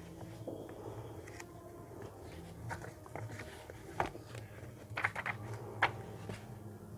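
Pages of a paperback book being handled and turned: soft paper rustling with a few short, sharp snaps of paper about four, five and six seconds in, over a low steady hum.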